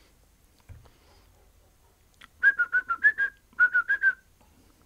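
A person whistling two quick runs of short notes, about seven and then five, into an iPhone 5's microphone for a Voice Memos recording test.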